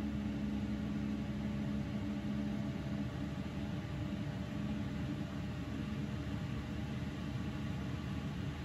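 5 kW Chinese diesel parking heater running after lighting and warming up: a steady whir of its fan with a low hum.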